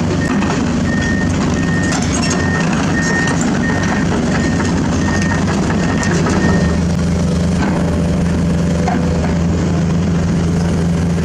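Heavy diesel construction machine running steadily, with its travel or back-up alarm beeping at an even pace until about seven seconds in, then the engine alone.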